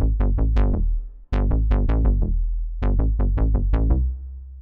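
Synth bass preset from ROLI's Equator Player played on a Seaboard Block: quick runs of short, bright-edged notes over a heavy deep low end. The sound cuts out for a moment a little over a second in, then the notes resume.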